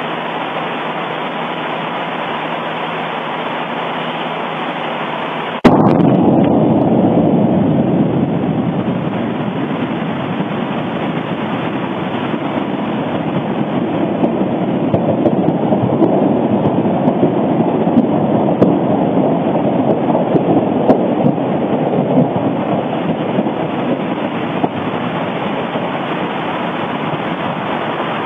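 Sound of an erupting volcano, recorded at a volcano other than Kīlauea: a steady noise, then about five and a half seconds in a sudden blast, followed by a louder, deeper continuous rumble with scattered cracks.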